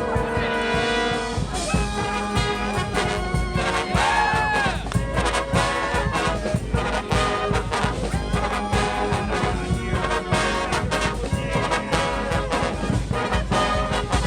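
Street brass band playing: horns holding chords over a steady drum beat, with one horn bending up and back down in pitch about four seconds in.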